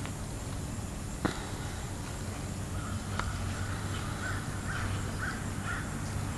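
A bird cawing four times in quick succession, about two calls a second, over a steady low hum, with a single sharp click earlier on.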